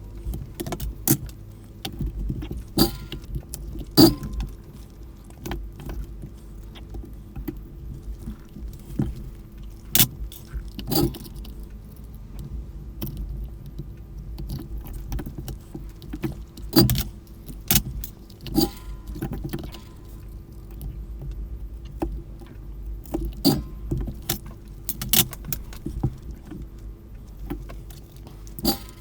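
Irregular clicks, taps and small clatters of parts and tools being handled while a cordless telephone is taken apart, some knocks much louder than the rest, over a steady low hum.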